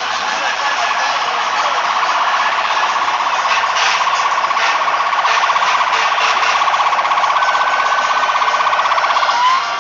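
Electronic vehicle siren sounding a fast, steady warble on one pitch, ending in a short upward sweep near the end, over street noise.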